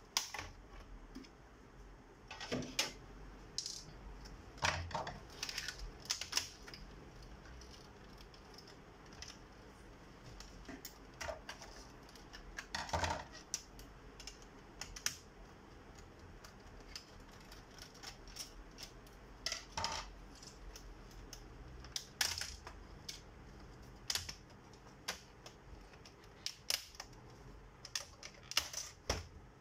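Irregular clicks, taps and short metallic rattles of a screwdriver and small parts being worked on the sheet-metal chassis of an opened all-in-one computer.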